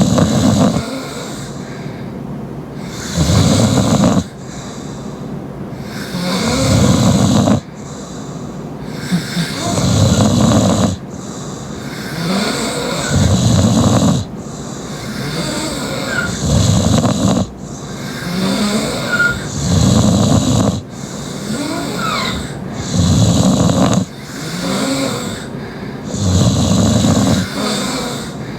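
Loud open-mouth snoring from a sleeping person, a heavy rasping snore about every three seconds with quieter breathing between.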